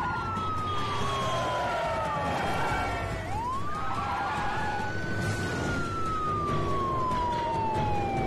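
Police car siren wailing: its pitch rises, falls slowly, then swoops up again about three seconds in and falls slowly once more. Car tyres screech under it.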